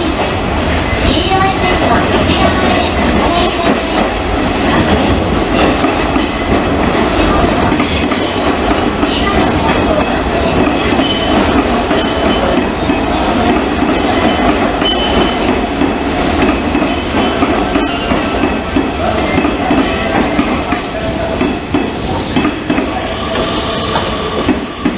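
Hanshin Railway electric train running through the station junction. Its wheels click over rail joints and points, with some wheel squeal.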